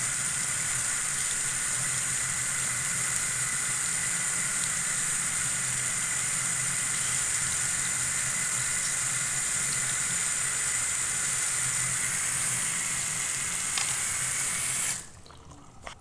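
Bathroom sink faucet running, a steady stream of water splashing onto the drain; the tap is shut off abruptly about a second before the end.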